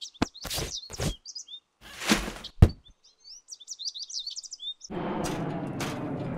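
Sound-effect track of birds chirping, cut through by several short sweeping hits and a thud in the first three seconds. About five seconds in, a steady jet-engine rumble takes over.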